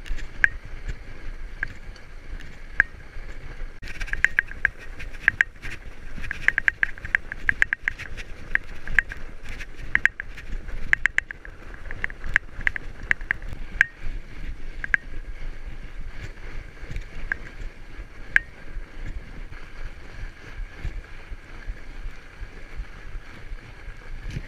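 Fat bike ridden over a snowy trail: a steady rumble of tyres and wind on the microphone, with sharp, irregular ringing clicks and rattles from the bike, thickest from about four seconds in until about fourteen seconds in.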